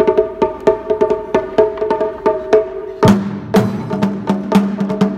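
Japanese taiko drums played by a children's ensemble: a steady beat of about four strikes a second, with a deeper drum coming in about three seconds in.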